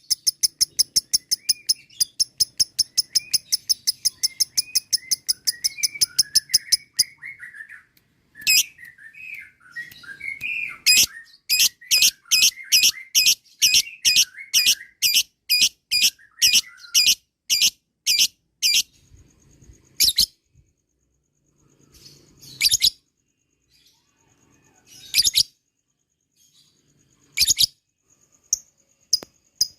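Lovebird ngekek: a long run of sharp, rapidly repeated high notes over softer twittering, stopping about seven seconds in. A second, slower run follows, then scattered single calls.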